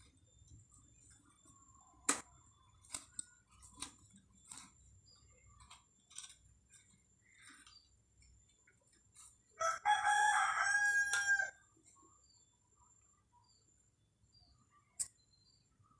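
A rooster crows once, a loud pitched call about two seconds long, just before the middle. Scattered light taps and knocks come before it and once near the end.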